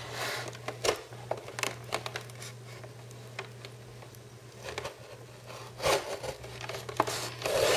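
A knife cutting and sawing through a toy's packaging box, with scattered clicks, scrapes and crinkling, over a steady low hum.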